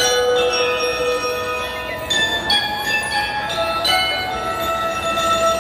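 Metal-bar mallet percussion, glockenspiel-like keyboard instruments, playing a slow passage of single struck notes that ring on for several seconds and overlap.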